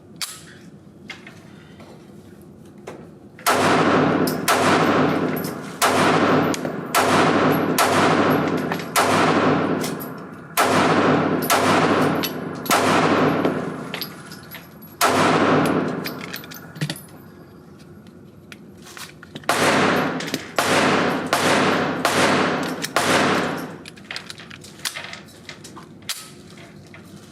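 Springfield Armory Hellcat 9mm pistol firing: a string of about a dozen shots roughly a second apart, then after a short pause about six more in quicker succession, each shot trailing off in an echo. Fainter, more distant shots sound before, between and after the strings.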